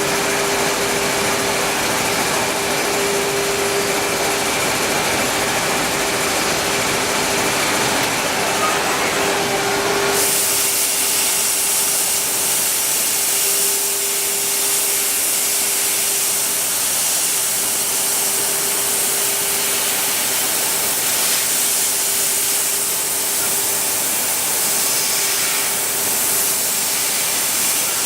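CNC cutting machine running: a steady whine under a hissing noise, the hiss growing louder and brighter about ten seconds in.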